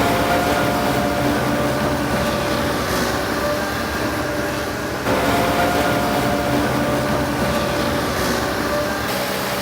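Heavy diesel logging machine running steadily, its engine hum holding several steady tones, with a small change in level about five seconds in.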